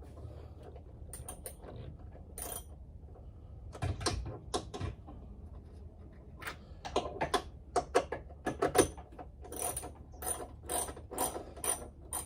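Hand socket ratchet clicking as it tightens the strut's upper mounting bolts: scattered clicks at first, then steady runs of about three clicks a second from about halfway through.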